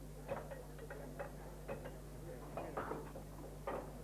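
Steady low hum with scattered irregular clicks and ticks.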